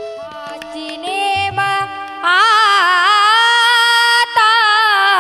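A woman singing a long, held devotional kirtan note with heavy vibrato, coming in loudly about two seconds in over steady harmonium tones. A couple of drum strokes sound just before she enters.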